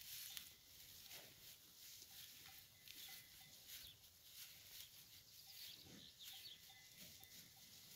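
Faint, irregular crunching and rustling of dry straw as a fighting bull tears it up and chews it.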